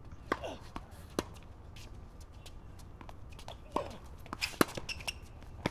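Tennis ball being struck by rackets and bouncing on a hard court: a string of sharp pocks at irregular spacing, with a quick cluster of the loudest hits about four and a half seconds in.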